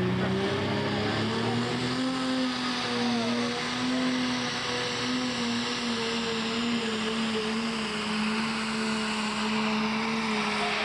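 Pro stock pulling tractor's turbocharged diesel engine at full throttle under load, pulling the weight sled down the track. The engine pitch climbs over the first two seconds, then holds steady and sags slightly toward the end.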